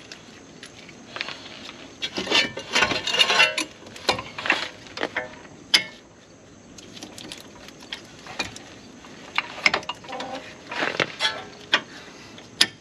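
Irregular metal clinks and knocks, some with a short ring, as steel strut bolts are worked through the strut and steering knuckle.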